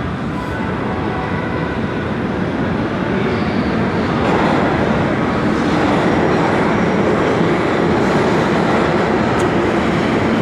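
Subway train rumbling, a steady loud noise that grows louder about four seconds in.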